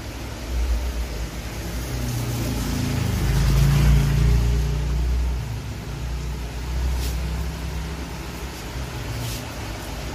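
A motor vehicle's engine running low, growing louder to a peak about four seconds in and then easing off.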